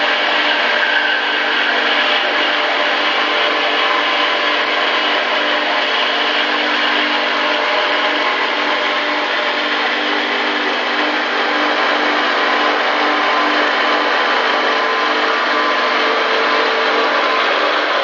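MEP Shark 652 SXI EVO band saw running and cutting through a steel H-beam with a Bahco 3853 Fabricator blade: a steady, even cutting hiss over the machine's hum, with several steady tones.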